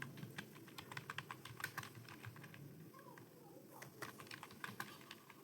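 Typing on a computer keyboard: rapid, irregular key clicks in runs, with a brief pause a little past halfway.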